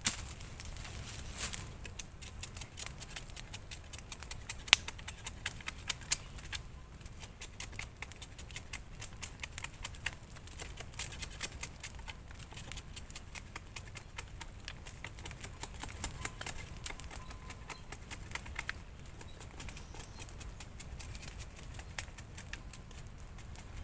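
A large knife shaving and trimming a thin wooden stick: quick, irregular cutting strokes and sharp clicks, several a second.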